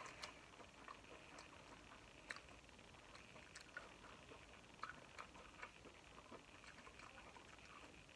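Faint chewing of corn on the cob: soft irregular clicks and mouth smacks over a quiet hiss.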